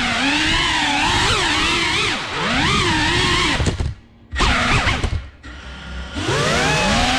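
Cinewhoop FPV drone's small brushless motors and ducted propellers whining, the pitch wavering up and down with the throttle. Around the middle the sound drops away twice as the throttle is cut, then the whine climbs again as the motors spool back up.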